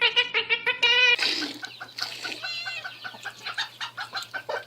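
Chickens clucking: a quick run of short clucks, with a brief pitched squawk about two and a half seconds in. About a second of high, rapidly repeated calls comes first.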